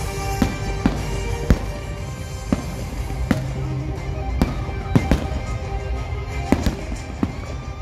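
Fireworks going off in an irregular series of sharp bangs, about ten in all, over loud music.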